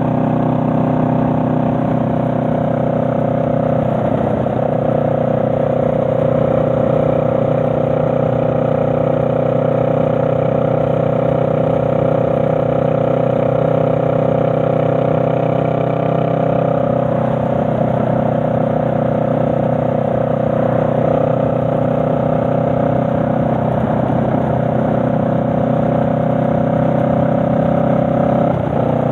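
Honda Rebel 500's parallel-twin engine running at a steady cruise under a motorcycle rider. The engine note changes briefly about four seconds in and again near the end.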